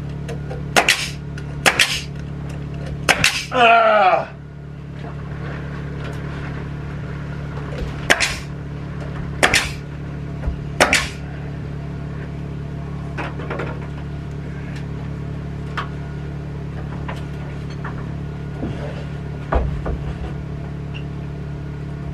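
Pneumatic nail gun fastening soffit boards overhead: a string of sharp shots a second or more apart, louder in the first half and fainter later, over a steady low hum.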